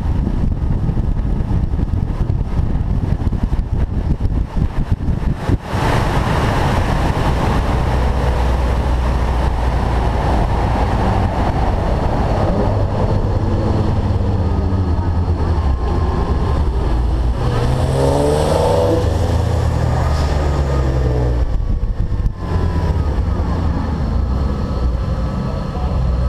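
Sports car engine under hard acceleration, its note climbing in rising sweeps over a heavy rush of wind and road noise. The sound breaks off briefly twice, about six seconds in and again past twenty seconds.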